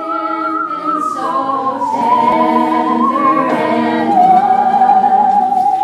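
Musical saw being bowed, playing a slow Christmas melody: long wavering notes with a wide vibrato that slide down from one pitch to the next, the last held long. Lower sustained chords run underneath.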